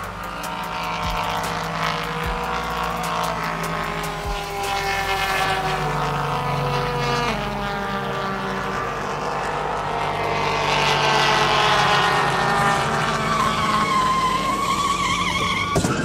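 Car engine sound effect, revving up and down with several gliding pitches at once, rising to a whine late on. A sharp crash-like impact comes near the end.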